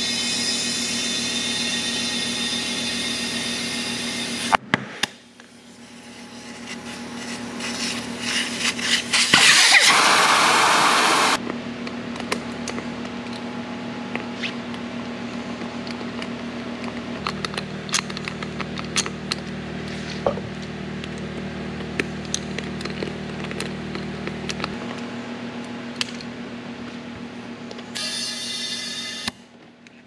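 Compressed air hissing from an air chuck into a kart tire's valve stem to seat the beads on the rim. It comes in separate bursts: one at the start, the loudest about ten seconds in, and a short one near the end. A steady machine hum and a few small clicks run underneath.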